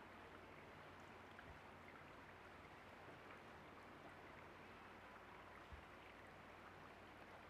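Faint, steady murmur of a shallow stream running over stones, with one soft low bump about six seconds in.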